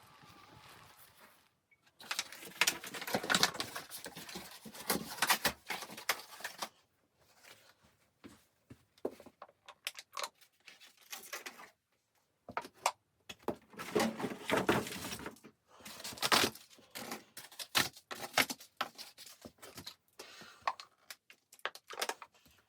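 Close-up rustling, crinkling and light knocking of things being handled in a small room, coming in irregular bursts with short pauses. It follows a brief steady wind-like hiss in the first second or so.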